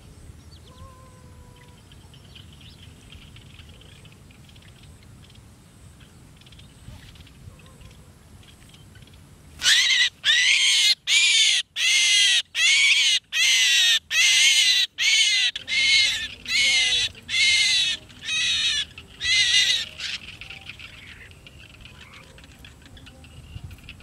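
A captured bird held in the hand gives a run of about a dozen loud, harsh calls, each about half a second long and rising then falling in pitch, starting about ten seconds in: the distress calls of a bird being held.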